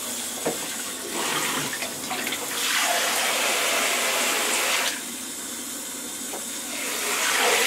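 Water spraying from a hand-held shower head into a shallow bath and splashing, as a steady hiss. It is louder for about two seconds in the middle and swells again near the end.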